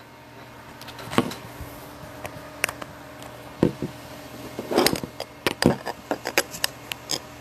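Handling noise from a smartphone being picked up and repositioned: scattered knocks, taps and rubbing against the microphone, a few at first and a busier cluster in the second half.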